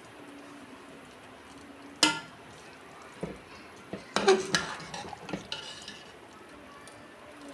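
Steel ladle stirring chunks of cauliflower, potato and meat in a metal pot, scraping and clinking against the pot: one sharp ringing clink about two seconds in, then a cluster of clinks and scrapes a little after four seconds.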